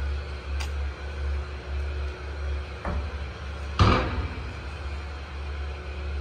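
Low, pulsing rumble of wind buffeting the microphone, with a sharp knock about four seconds in and a fainter knock just before it.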